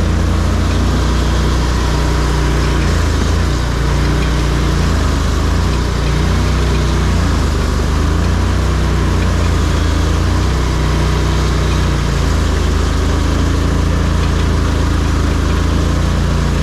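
ARGO amphibious off-road vehicle's engine running as it drives, at a mostly steady speed, with its note easing down and back up a few times.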